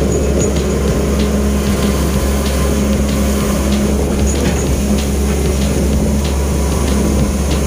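Long-reach excavator's diesel engine running steadily under load, heard from inside the cab as the arm's hydraulics work the bucket through mud. A deep, even drone, with faint scattered ticks over it.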